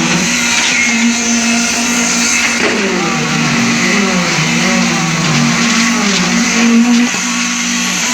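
Construction machinery running steadily: an engine-like hum held at one pitch, with a lower drone that wavers up and down.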